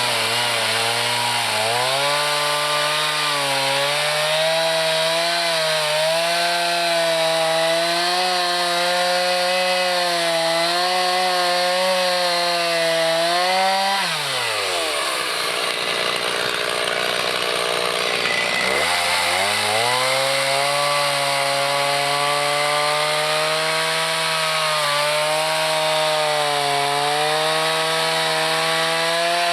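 Chainsaw revving up and running at high speed with its pitch wavering, as under load when cutting wood. About halfway through it drops back toward idle for a few seconds, then revs up again and holds, falling off right at the end.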